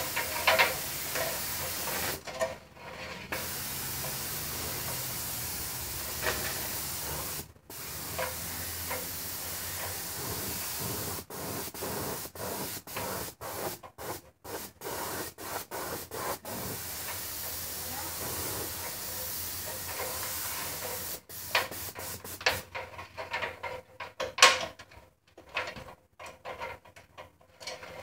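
Hiss of a paint sprayer being sprayed, running for long stretches with a few short breaks, then stopping and starting in quick short bursts from about halfway through.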